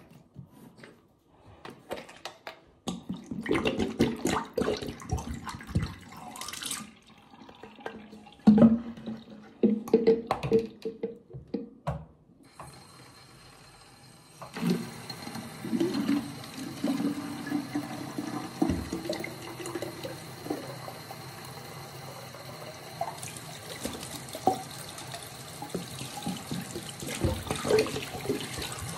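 Plastic spray bottle handled and knocked against a sink with irregular clunks and clatter, then a tap running steadily into the sink from a little under halfway on.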